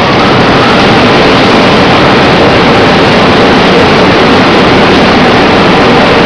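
Tunnel car wash in operation: water spraying onto a car while spinning foam wash brushes work along its sides, over the steady running of the wash machinery. The noise is loud and constant throughout.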